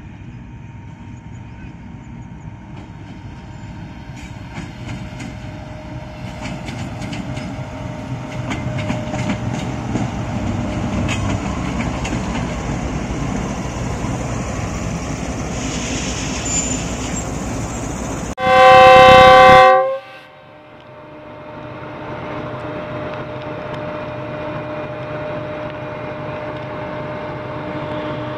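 Diesel locomotive hauling a passenger train, its engine rumble growing louder as it draws near and passes, with wheels clicking over the rail joints. About 18 seconds in, a very loud horn blast of about a second and a half, several tones at once, cuts off suddenly; after that a steadier, quieter locomotive engine hum.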